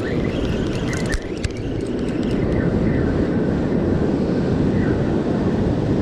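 Steady wind noise on the microphone over breaking ocean surf, with a few clicks and rustles of the camera being handled about a second in.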